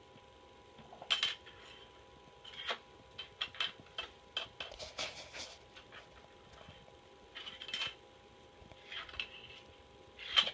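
A cat batting a small spoon around a hardwood floor: irregular light clicks and clatters, the loudest about a second in and just before the end.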